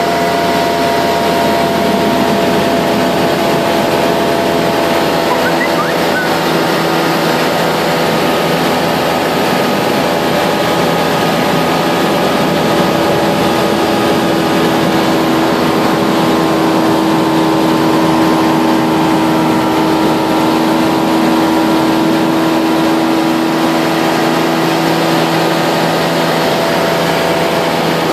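Cabin noise of a Jora ultralight aircraft in flight: engine and propeller making a steady, loud drone with several held pitches over a rush of air.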